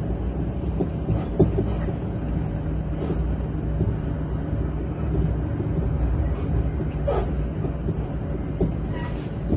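Regional train running on the line, heard from on board: a steady low rumble with a faint hum and a few scattered clicks from the wheels on the track.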